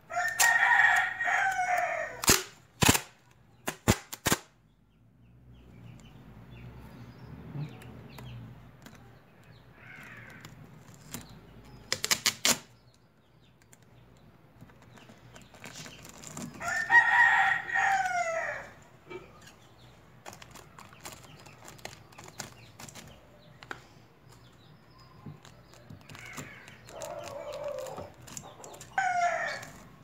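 A rooster crowing three times. A few sharp clicks fall between the first two crows.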